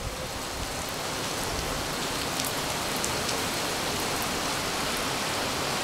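Steady rain falling, an even hiss with a few faint sharp drop ticks.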